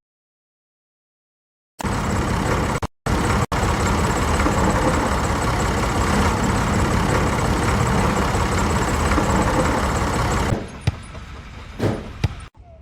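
A machine's engine running steadily and loudly, starting abruptly after about two seconds of silence with two brief dropouts. It falls away about ten seconds in to quieter scattered knocks.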